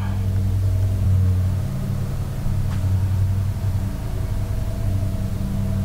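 A steady low machine hum with a few fainter steady tones above it, slightly rougher and more uneven from about a second in.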